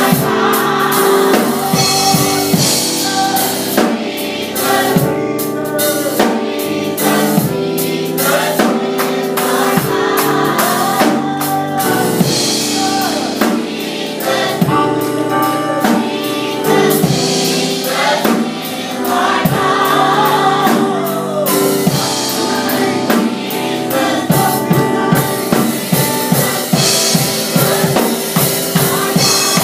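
Young adult gospel choir singing with band accompaniment and a drum kit keeping a steady beat.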